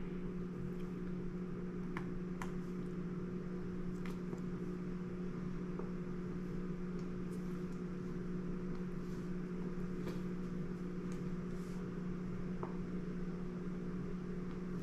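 Steady low mechanical hum with a few faint light clicks scattered through it.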